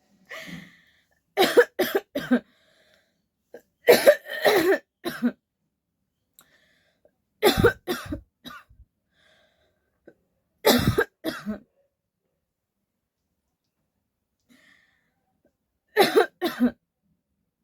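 A person's deliberate, put-on coughing: five short fits of about three or four harsh coughs each, a few seconds apart, with quiet gaps between them.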